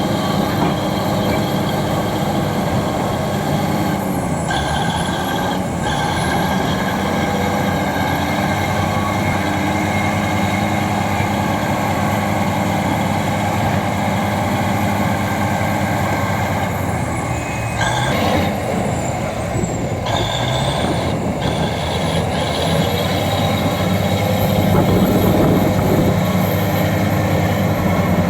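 Bulldozer's diesel engine running steadily under load, with a thin high whine that dips in pitch twice and comes back up.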